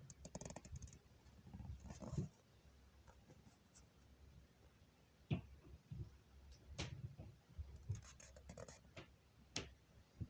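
Faint, irregular knocks, clicks and scraping in a small room, with a few sharper knocks in the second half.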